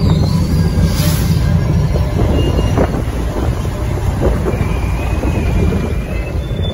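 Diesel subway work locomotive running slowly past, a steady low rumble with scattered faint wheel clicks. Brief thin wheel squeals sound about three seconds in and again longer near the end.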